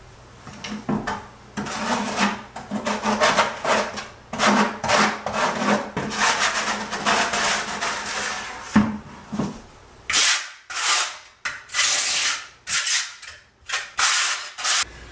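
Steel trowel scraping tile-setting mortar: scooping it out of a plastic bucket, then spreading it in repeated rasping strokes across the back of a floor tile, the strokes coming separately and crisper in the last few seconds.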